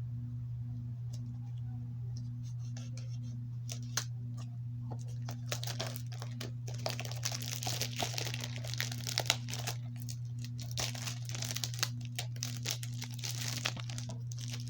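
Plastic shrink-wrap on a DVD case being torn open and crinkled by hand: a few scattered crackles at first, then dense crinkling from about six seconds in until near the end, over a steady low hum.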